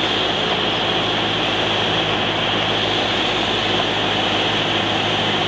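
Steady drone of a Cessna 172's four-cylinder engine and propeller with airflow noise, heard inside the cabin on final approach.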